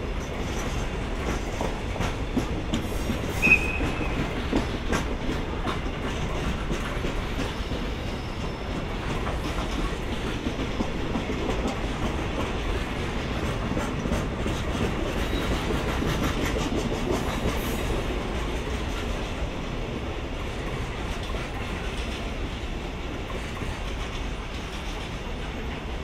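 Empty Koki 50000 container flatcars rolling past, their wheels clicking over rail joints in a steady clickety-clack, with one short high squeak about three and a half seconds in.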